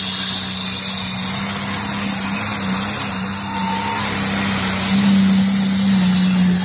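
Big diesel engine of a pulling vehicle running flat out under load as it drags the sled down the track, heavily fueled and rolling black smoke. A steady high-revving drone that gets louder about five seconds in.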